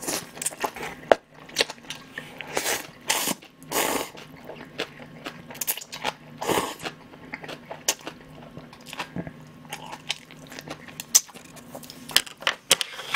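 Close-miked eating of instant cup ramyeon noodles: repeated slurps of noodles drawn into the mouth, with wet chewing smacks and clicks between them.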